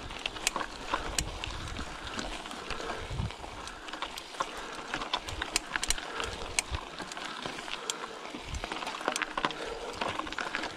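Bicycle ridden over a rough trail: irregular clicks and rattles from the bike and its tyres on dirt and stones, with uneven low rumbles of wind on the microphone.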